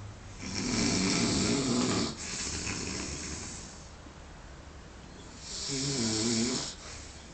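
A sleeping man snoring heavily: two long snores, one starting about half a second in and trailing off slowly, the other about five and a half seconds in and cutting off more sharply.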